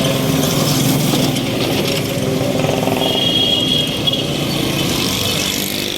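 Busy city street traffic: cars and motorbikes passing with engines running, and a brief high steady tone about halfway through.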